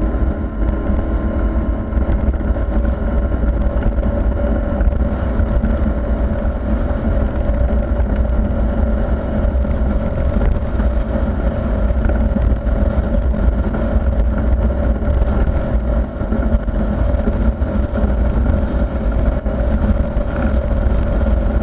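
The outboard motor of a new 2022 Mako Pro Skiff running at a steady cruising speed with the boat underway.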